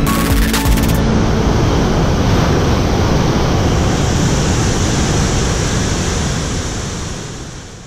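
Murchison Falls on the Nile: white water crashing over the rocks in a loud, steady roar, fading out near the end.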